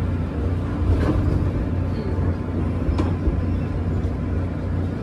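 Inside a Korail Line 1 resistor-control electric train rolling slowly to a stop at a platform: a steady low hum with running noise, and a single sharp click about three seconds in.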